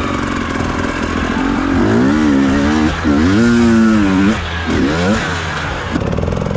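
Enduro dirt bike engine revving hard under load on a steep climb, the revs rising and falling with the throttle. Held high for about a second past the middle, then a short blip near the end.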